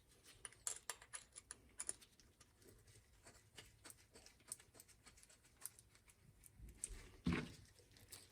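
Faint clicks and taps of small carburetor parts being handled and fitted together, with one louder dull knock about seven seconds in.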